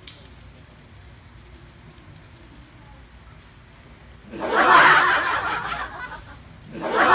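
Faint room tone, then about four seconds in a loud burst of breathy laughter lasting about two seconds, and a second burst starting near the end.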